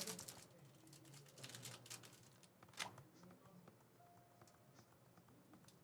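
Near silence with faint, scattered small clicks and light rustling, with a sharper tick right at the start and another about three seconds in.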